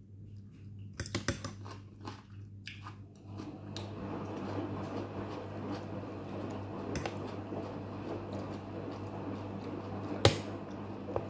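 A person chewing a mouthful of noodle papaya salad close to the microphone, with a few clicks of metal forks about a second in. Near the end comes a sharp, loud clink of a fork against the plate as the noodles are mixed.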